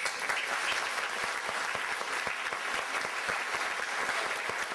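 Audience applauding: many hands clapping in a dense, steady patter that breaks out at once.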